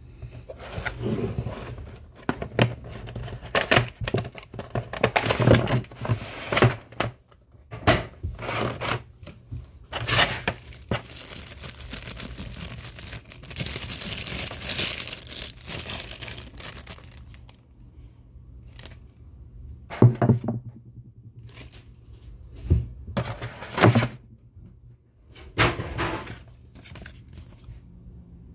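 Clear plastic wrapping crinkling and rustling in irregular bursts as a boxed model airliner is handled and pulled from its plastic box tray, with a few louder bumps in the second half.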